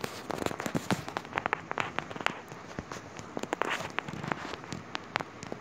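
Heavy rain pouring down, with big drops landing as irregular sharp taps on a hard surface close to the microphone over a steady hiss of rainfall.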